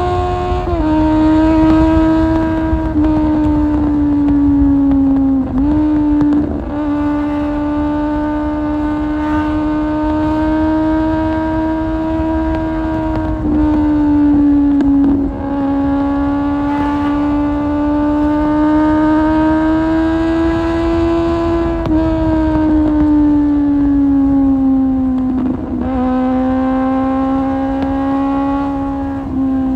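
Kawasaki Z750's 748 cc inline-four engine running through an Akrapovic exhaust while riding, held at a steady high-pitched note that drifts slowly up and down. The pitch dips briefly several times, over a rush of wind.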